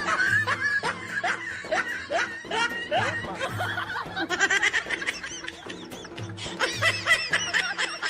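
Laughter: a long run of short snickering laughs over background music.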